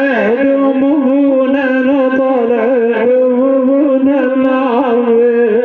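A man chanting a Shia elegiac lament in a long, drawn-out melodic line, holding sustained notes with a slight waver.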